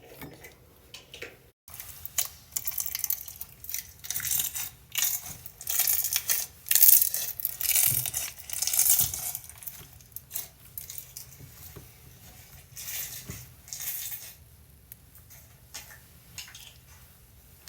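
Banana pudding scented slime being squished and stretched by hand, giving dense crackling and popping clicks. It starts sharply after a brief drop-out, is loudest through the middle, and falls away to faint clicks a few seconds before the end.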